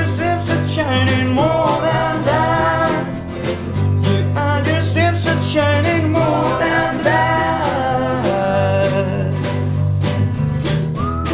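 Live acoustic band music: two acoustic guitars strummed over a steady percussion beat, with a voice carrying a melody without clear words.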